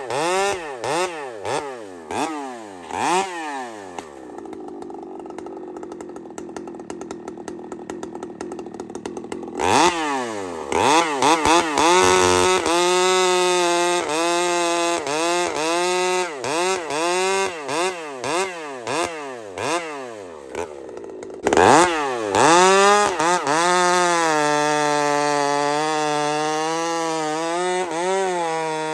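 Two-stroke chainsaw blipped up and down a few times, then idling for about five seconds. It then runs at full throttle through the rest, its pitch sagging and recovering under the load of cutting wood.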